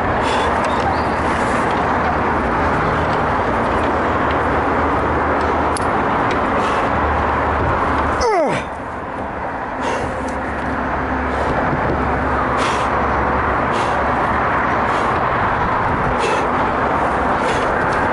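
Steady rushing noise with scattered light taps and knocks as hands grab the holds of an artificial climbing wall. About eight seconds in, a quick sound sweeps down in pitch.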